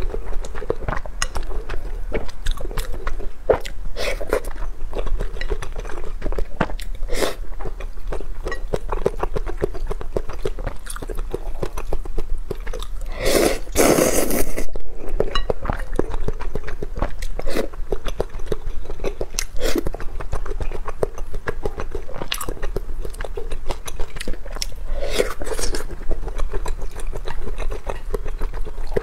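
A person chewing and slurping instant noodles in spicy broth, with wet mouth clicks throughout and one long, loud slurp about halfway through.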